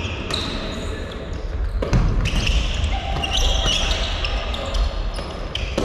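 Squash volleyball being played in a gymnasium: the ball is struck and bounces about three times, with high squeaks in between.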